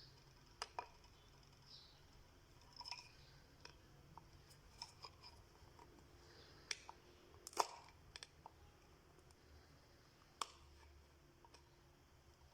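Scattered faint clicks and small taps of small parts being handled, about a dozen spread unevenly, the loudest about seven and a half seconds in.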